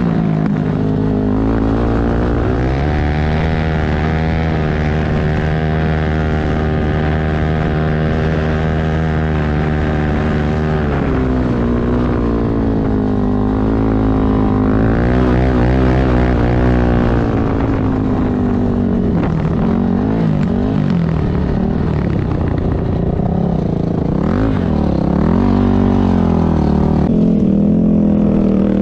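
A four-stroke single-cylinder off-road engine running under way. It holds a steady pitch for about the first ten seconds, then its pitch rises and falls repeatedly as the throttle is worked.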